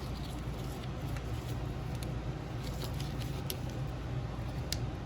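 Light clicks and rustles from an automotive wire harness with plastic connectors being handled, over a steady low background hum.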